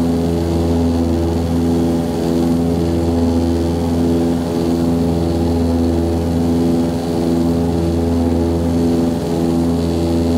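Antonov An-24's twin Ivchenko AI-24 turboprop engines and propellers running steadily, heard inside the passenger cabin. A steady multi-tone drone with a slow, regular throb under twice a second, typical of two propellers turning slightly out of step.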